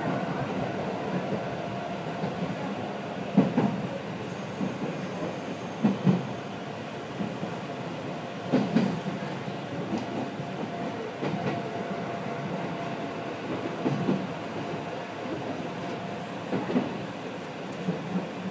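Iyotetsu ex-Keio Inokashira Line 3000 series electric train running along the track, heard from inside the cab, with steady running noise. The wheels clack over rail joints every two to three seconds.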